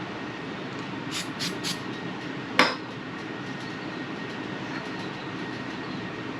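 Three quick hisses of a pump-spray bottle of CA glue accelerator, then a single sharp tap, over a steady background hum.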